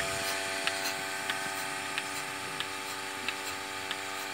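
Single-bucket milking machine at work: its vacuum pump runs with a steady hum while the pulsator clicks evenly, about three clicks every two seconds.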